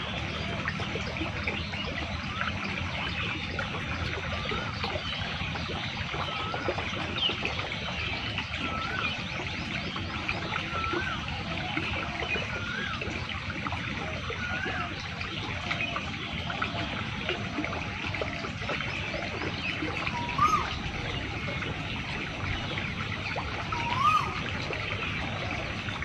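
Irrigation water flowing and trickling steadily through a flooded field channel. A bird repeats a short, upward-hooked whistled note every second or two, with two louder calls near the end.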